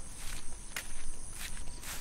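Footsteps of a person walking on a dirt and grass footpath, a step about every half second.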